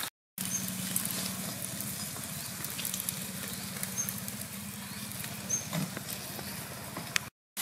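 Long fish clamped in split bamboo sizzling over glowing charcoal, with a steady crackle and hiss from the embers and a faint low hum underneath.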